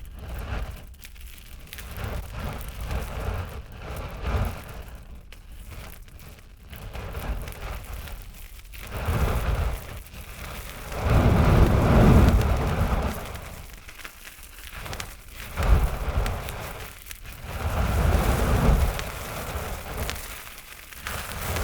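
Fire burning with steady crackling, swelling several times into loud rushes of flame lasting a second or two, the loudest near the middle.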